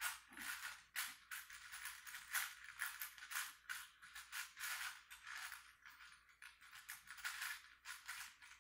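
Rustling of loose fabric trousers and clothing against a wooden floor as a person lying on their back rocks gently, in short irregular strokes a few times a second.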